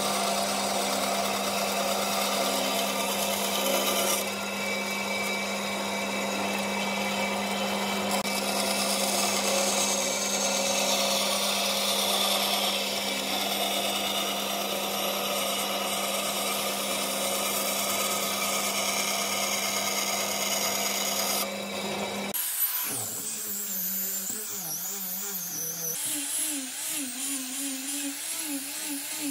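Benchtop bandsaw running and cutting a wooden board along a curve, a steady motor hum under the rasp of the blade. About 22 seconds in it gives way to a small handheld disc sander spinning against the wood face with a high, wavering whine.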